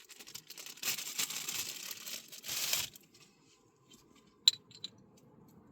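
Plastic packaging crinkling and rustling for about two seconds, then a sharp click followed by two lighter ticks.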